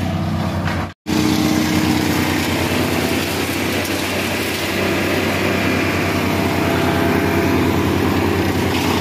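Tow-behind wood chipper running steadily, its engine hum under the rush of chipped branches and leaves blowing out of the discharge chute into a chip box. The sound drops out briefly about a second in.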